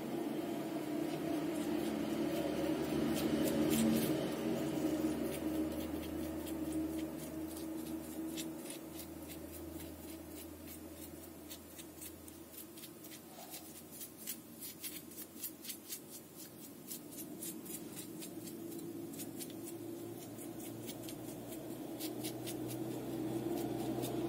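Paintbrush dabbing and scrubbing dark green paint onto a rough rock-textured diorama cliff: quick dry ticks and scratches, several a second, over a steady low hum.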